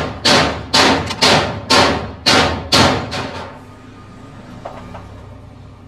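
A series of about seven heavy blows, roughly two a second, like a hammer striking metal work, stopping a little over three seconds in; a low steady hum stays underneath.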